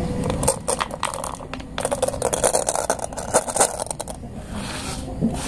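Glass marbles clicking and rattling against each other and inside a hollow plastic toy as it is handled, with some scraping; the quick run of clicks thins out about four seconds in.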